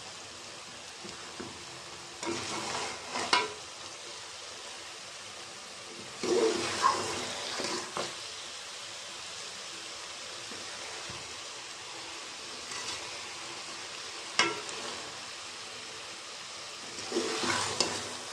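A steel spoon stirring and scraping potatoes and fenugreek leaves in an aluminium pot, in three bouts with clinks against the pot's side, over a steady sizzle of the curry frying on raised heat to cook off the last of its water.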